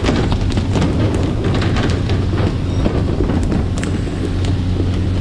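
Fishing boat's engine running with a steady low hum under the continuous hiss and patter of its water-spray sprinklers hitting the sea surface, the spray used in pole-and-line tuna fishing to mimic fleeing baitfish.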